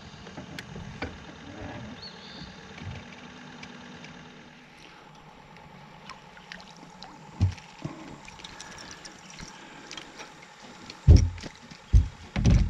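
A hooked crappie splashing at the water's surface beside a fishing boat, with scattered small splashes and clicks. Several dull low thumps near the end are the loudest sounds.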